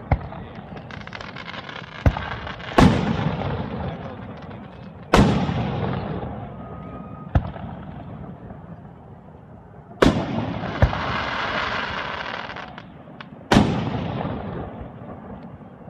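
Aerial fireworks shells bursting close overhead: about four loud booms a few seconds apart, each trailing off in a long rolling rumble, with smaller sharp pops in between.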